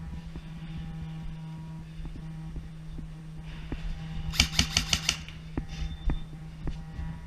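Airsoft electric gun firing a quick full-auto burst of about eight shots, halfway through. Scattered single clicks and knocks come before and after, over a steady low hum.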